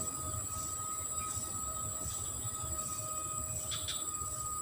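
Steady high-pitched drone of insects, with a faint pulsing about twice a second. A brief click comes near the end.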